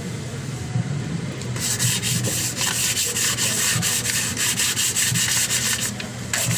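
Sandpaper rubbed back and forth over a Mitsubishi Mirage G4's front brake disc rotor to clean its surface, a quick run of scraping strokes starting about a second and a half in and stopping near the end.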